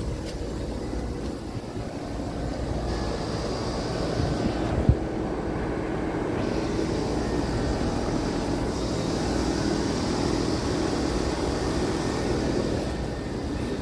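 Residential heat pump outdoor units running, a steady hum of fans and compressors, with one sharp knock about five seconds in.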